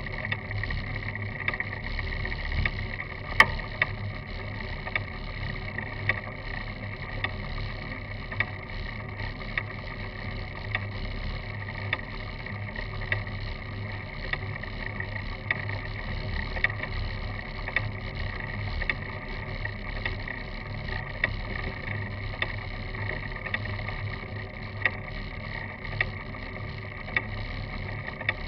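Steady rolling and wind noise picked up by a camera mounted on a road bike, with a sharp tick about once a second.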